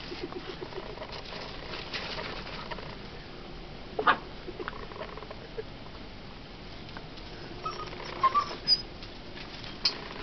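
Standard poodle puppies playing on gravel, paws scuffling. One sharp squeak about four seconds in, and a few short high yips near the end.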